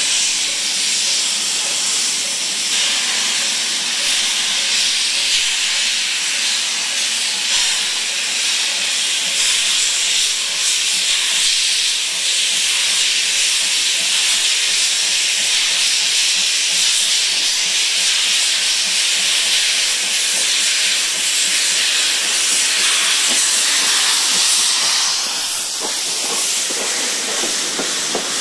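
8620-class steam locomotive hissing steadily, steam venting from around its cylinders as it pulls through the station. Near the end its passenger coaches roll past with a few clicks of wheels over the rail joints.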